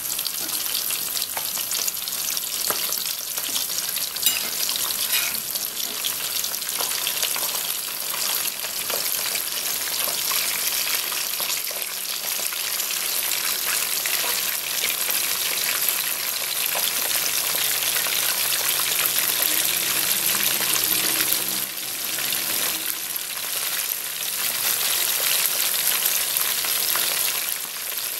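Hot oil sizzling steadily around two whole fish deep-frying in a wok, a dense crackle with many small spattering pops.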